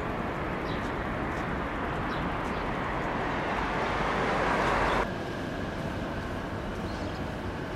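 Freight train running by: a steady rush of wheel and rail noise that grows louder, then drops suddenly about five seconds in to a quieter steady rumble with faint ticks.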